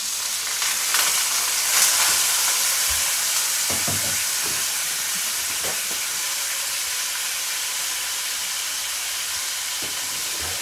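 Small arepas cooking in a pan with a little water added, sizzling and hissing as the water steams off. It is loudest about two seconds in, then settles to a steady sizzle, with a few light knocks in the middle.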